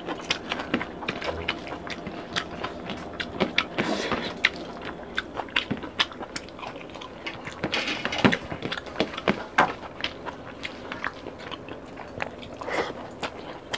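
Two people eating rice and fish curry with their hands: chewing and lip smacking close to the microphone, with fingers squishing rice on the plates. Many short, irregular clicks and smacks.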